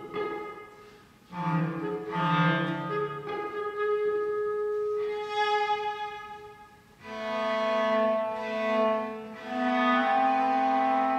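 Clarinet and cello playing a slow duet in long held notes, the two parts overlapping. The music thins out briefly about a second in and again near seven seconds, then both instruments hold sustained notes together.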